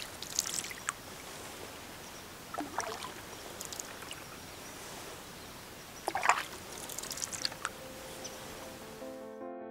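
Canoe paddle strokes in river water: about four splashes and drips spread over several seconds, above a steady wash of water. Piano music comes in at the very end.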